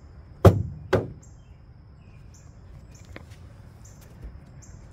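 Two sharp knocks about half a second apart, then a lighter click about three seconds in, as hard objects are handled at a plastic bucket in a flat-bottomed boat. A short, high chirp repeats about once a second in the background.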